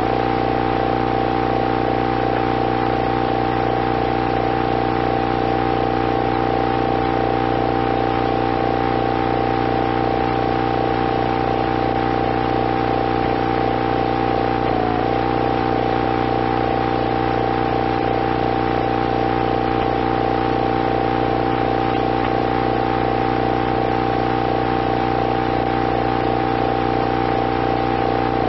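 A steady droning hum of several held tones with a fast, even pulse running through it, engine-like in character; it wavers briefly about halfway through.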